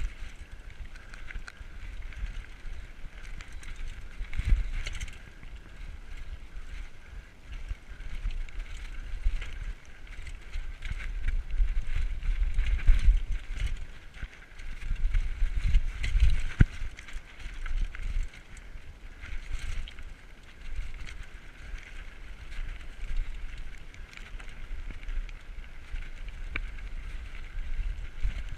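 Diamondback Recoil 29er mountain bike rattling and bumping down a rocky dirt trail, its tyres rolling over loose stones, with wind buffeting the camera microphone. Heavier jolts come about four and a half seconds in and again near thirteen and sixteen seconds.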